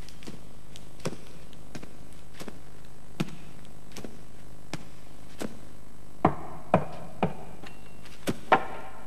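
Footsteps on a stone floor, one step about every 0.7 seconds, then a few louder knocks in the last few seconds as a laden tray is set down.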